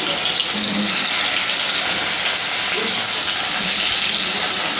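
Pieces of katla fish shallow-frying in hot oil in a kadhai: a steady sizzle.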